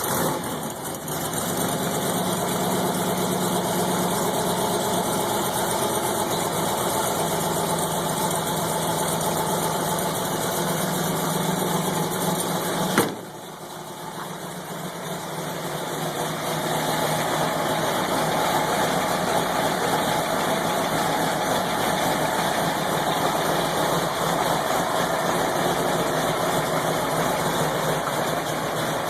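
A 1970 Ford Bronco's engine runs cold after sitting for three years, idling steadily. About 13 seconds in there is a sharp click, the sound drops quieter, and it builds back up over the next few seconds.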